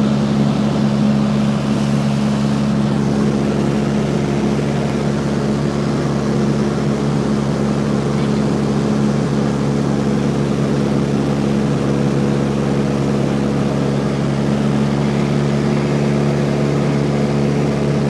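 A Cessna 172's piston engine and propeller running steadily in flight, heard from inside the cabin as a constant, even drone.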